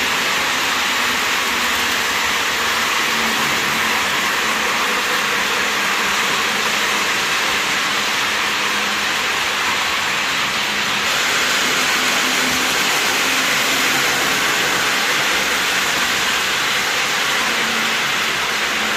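O-gauge model train running on three-rail track: a steady rolling rumble and hiss of metal wheels on the rails, a little louder about eleven seconds in.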